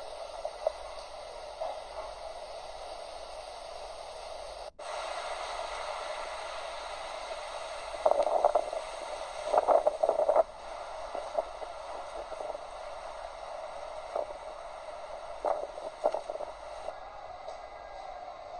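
Steady rain noise, with a few louder rough bursts near the middle.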